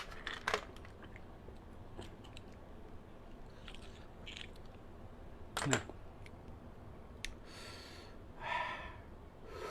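Close-up mouth sounds of eating blanched blood cockles: quiet chewing with sharp smacks and clicks near the start and again about halfway through. Two short hissing sounds come near the end.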